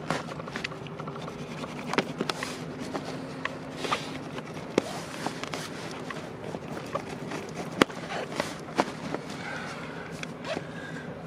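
Sailcloth rustling and crinkling as hands smooth and press it down along a strip of double-sided tape, with scattered sharp clicks and taps from the handling.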